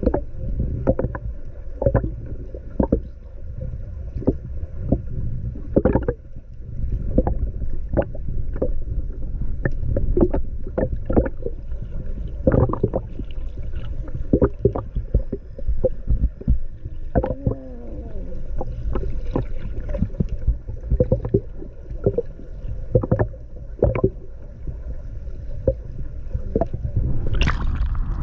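Muffled underwater sound picked up by a submerged action camera: a steady low rumble of moving water with irregular clicks and knocks, several a second. Near the end there is a loud splash as the camera breaks the surface.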